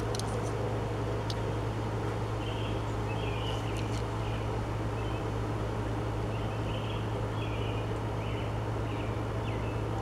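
Steady low background hum with faint high chirps in two short spells, and a light click or two of a die-cast toy car being handled.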